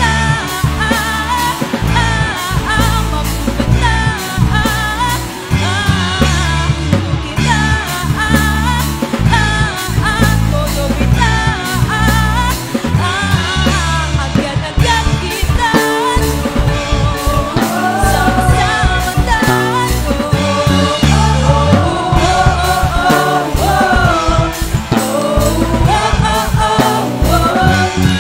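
A song with a lead voice singing over full band backing and a steady drum beat. It comes in abruptly at the start.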